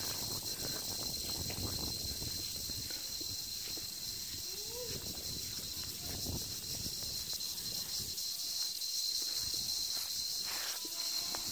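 Steady high-pitched chorus of insects, a continuous shrill drone, over a low rustling outdoor background. A faint rising and falling whistle sounds once about midway.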